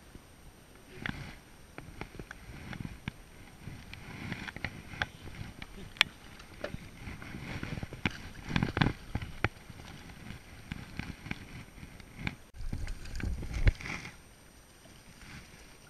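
A hooked fish splashing at the water's surface and being scooped up in a landing net beside a metal jon boat, with irregular knocks and clatter against the hull. The loudest splashing and knocking come around the middle and again near the end.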